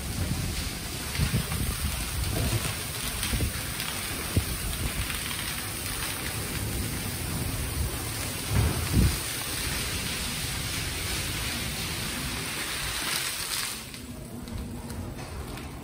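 Spray nozzles of an Istobal M'NEX 22 rollover car wash showering water and foam over a car: a steady, rain-like hiss with low rumbling underneath. The spray cuts off sharply about fourteen seconds in.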